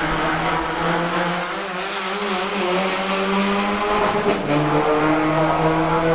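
Saloon race car engine running hard at steady revs through a corner. Its note breaks and changes pitch about four seconds in, with a short rush of noise as the car goes by.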